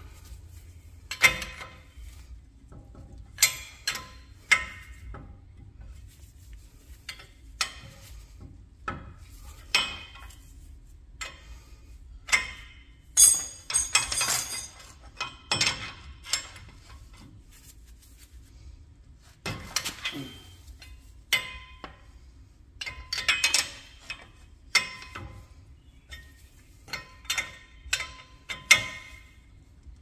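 Hand tools and metal parts clinking and knocking against each other in an irregular series of sharp strikes, some with a brief metallic ring.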